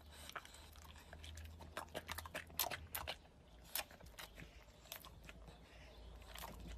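French bulldog chewing a small hard treat: a run of faint, crisp crunches, thickest between about two and four seconds in.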